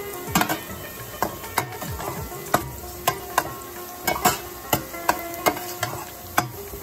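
Sliced onions frying in oil in a pan for beresta, sizzling steadily, while a spatula stirs them and clicks and scrapes against the pan, about two clicks a second at irregular intervals.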